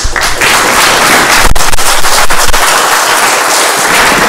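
Audience applauding: loud, dense clapping that starts at once and holds steady.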